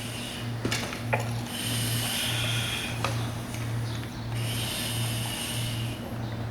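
Firefighter breathing on an SCBA air pack: the face piece's demand regulator hisses with each breath, about every three seconds, over a steady low hum with a few clicks.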